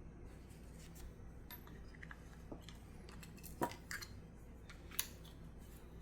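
Small metal gun parts and tools being handled: a few light metallic clicks and taps, spaced irregularly about a second apart, the sharpest about three and a half and five seconds in.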